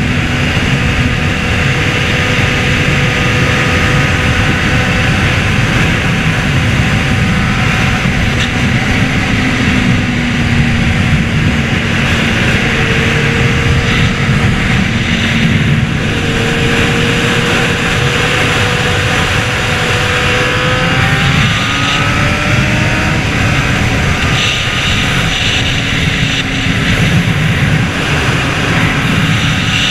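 Honda CBR600RR sport bike's inline-four engine running at a steady road speed under heavy wind rush on the microphone. The engine note rises and falls a little through the bends.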